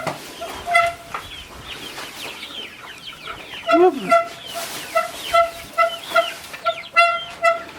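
Chickens clucking: a run of short repeated notes, about three or four a second, with a pause in the middle. High, quick falling chirps run over them, and a lower falling call sounds about halfway through.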